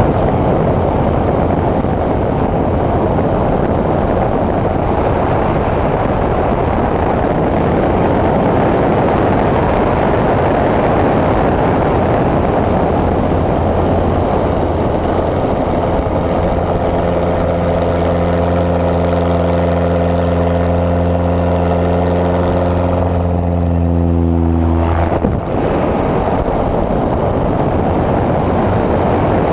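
Pitts S-1S aerobatic biplane in flight: its engine and propeller running hard under heavy wind rush on a wing-mounted camera. From about halfway a steady engine tone with several overtones rises above the noise. It breaks off sharply about 25 seconds in, with a brief dip in loudness, before the engine and wind noise carry on.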